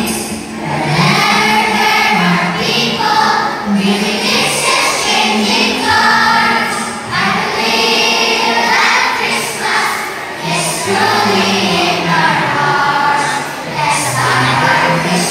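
A children's choir singing together in unison, holding sustained notes.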